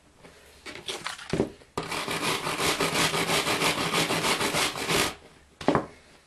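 A wire brush scrubbed back and forth along a steel chainsaw chain in rapid strokes for about three seconds, cleaning grime off the side plates, after a few light rattles of the chain being handled.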